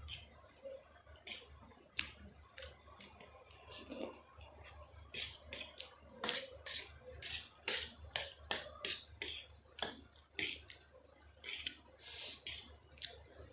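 Close-miked wet eating sounds of a person eating spicy Maggi instant noodles: a string of short, sharp mouth noises, slurps and smacks, that come thicker and louder about midway, around two a second.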